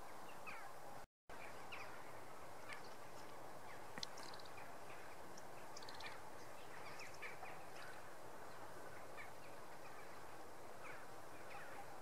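Small songbirds calling: many short, high chirps and quick trills over a steady rushing background. The sound cuts out completely for a moment about a second in.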